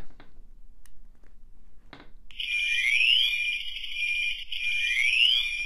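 A click of the lever switch, then the thermal detonator prop's electronics start its sound effect: a steady high electronic tone with a rising sweep that repeats about every two seconds, like an alarm, showing the switch and circuit are working.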